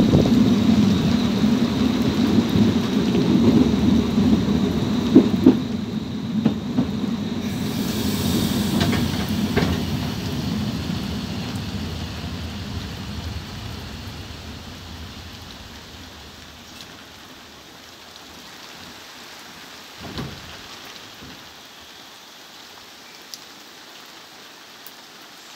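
Narrow-gauge steam train running in heavy rain: a low rumble with rain over it that dies away steadily over about fifteen seconds, leaving a faint rain hiss with a few light knocks.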